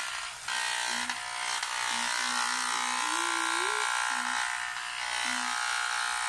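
Electric hair clippers buzzing steadily as they cut a child's hair, the buzz dipping briefly about half a second in.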